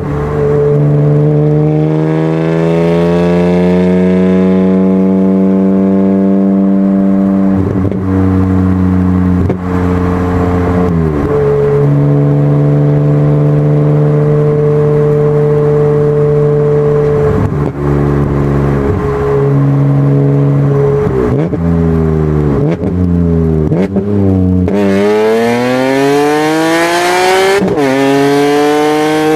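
Supercharged BMW Z4 M Roadster's 3.2-litre straight-six exhaust, running through electric exhaust cutouts set ahead of the mufflers, heard from a camera mounted outside the car while it is driven. The revs rise, hold steady, and dip briefly several times like gear changes. Near the end the engine pulls hard with a steeply rising pitch before letting off.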